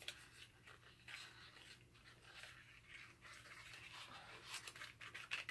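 Faint rustling and light clicks of a small cardboard toothpaste box being handled as the tube is worked out of it, a little busier near the end.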